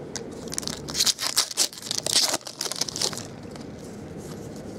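Foil wrapper of a 2013 Topps baseball card pack crinkling and tearing open: a dense flurry of crackles lasting about three seconds, followed by softer rustling as the cards come out.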